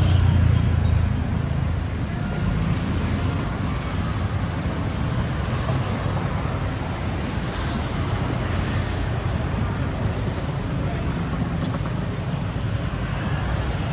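Busy city street: a steady rumble of road traffic, with a vehicle engine loudest and closest in the first second, and people talking in the background.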